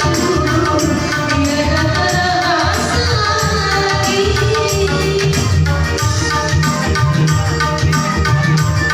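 Amplified live band music: an instrumental passage between verses of a song, over a steady drum and hand-percussion beat.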